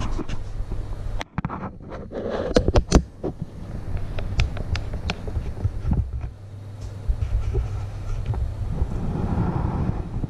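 Camera handling noise: rubbing and sharp knocks close to the microphone as a hand adjusts the camera, loudest in a cluster of knocks about two to three seconds in, over a low steady rumble.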